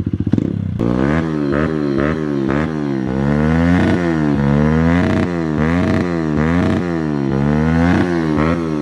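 Kawasaki KLX110 pit bike's single-cylinder four-stroke, fitted with a cut-down Pro Circuit exhaust, being revved over and over: courtesy revs. From about a second in the throttle is blipped about one and a half times a second, the pitch rising and falling with each rev.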